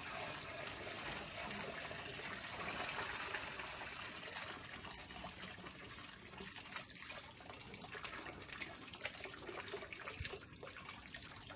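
Water pouring from a plastic bucket into a fountain basin, splashing into the water below in a steady stream that thins in the second half.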